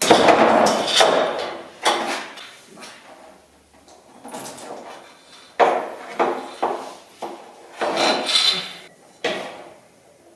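Hard handling noises: a loud scraping clatter at the start, then scattered sharp knocks and clunks, several close together in the second half, with some rubbing.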